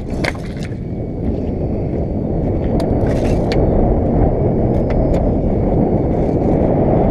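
Wind buffeting the camera microphone: a steady, rumbling rush that grows slightly louder, with a few faint clicks and taps over it.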